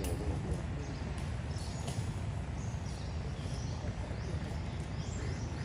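Forest ambience: a steady low rumble with scattered high, short bird chirps.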